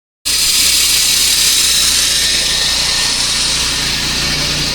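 Engine-driven saw cutting through tarmac: a steady, loud, hissing grind over the low hum of its engine, cutting in suddenly just after the start.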